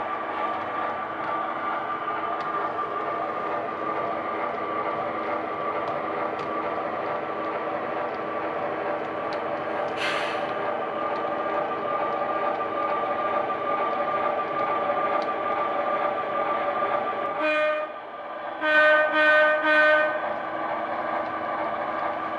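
HO scale model diesel locomotive's sound decoder playing a steady diesel engine drone as the train moves, with a brief hiss about halfway through. Near the end the horn sounds one short toot, then three short toots in quick succession.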